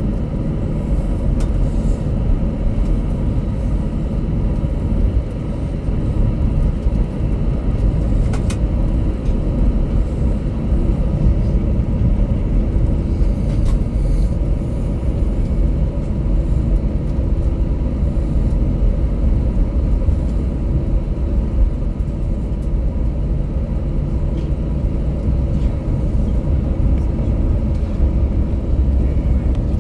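Cabin noise of an Airbus A321-200 on its takeoff run: engines at takeoff thrust and the wheels on the runway, a loud steady low rumble.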